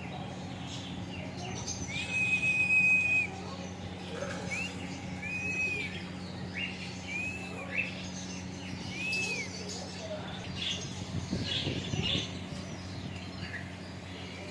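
A pet parrot whistling: one long, level whistle about two seconds in, then a string of short, arched whistles at the same pitch, with scattered chirps between them.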